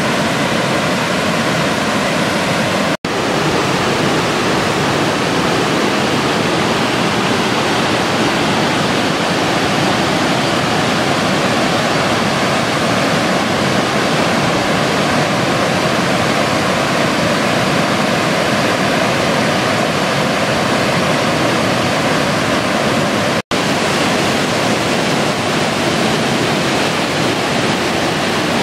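Waterfall's white water rushing down sloping rock slabs, a loud, steady rush. The sound cuts out for an instant twice: about three seconds in, and again about five seconds before the end.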